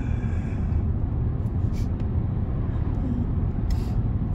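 Inside a Range Rover cruising on an open road: a steady low rumble of engine and tyre noise.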